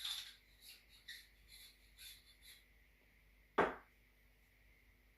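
Hands handling a rifle scope and its screw-off sunshade: faint rubbing and small ticks, then one sharp knock a little past halfway as a part is set down or knocked.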